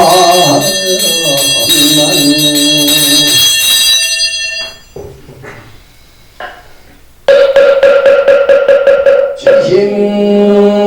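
Korean Buddhist liturgical chanting with a ringing handbell: the chant and ringing die away about four seconds in, a quieter stretch follows, then a loud fast-pulsing ringing over a held tone starts about seven seconds in, and a chanting voice returns near the end.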